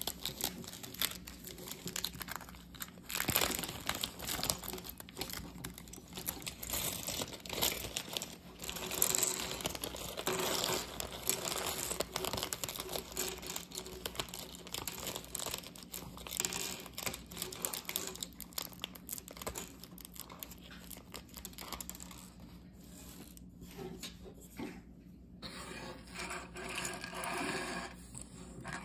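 Crinkling of a thin plastic polybag as small LEGO pieces are shaken and tipped out of it onto a wooden tabletop, with the pieces clicking and clattering against each other. The handling grows quieter near the end.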